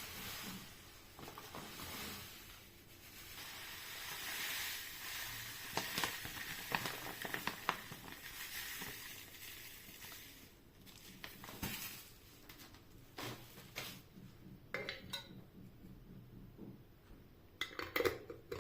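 Household objects being handled: a stretch of rustling hiss with small clicks over the first half, then a few separate clinks and taps of hard items being set down.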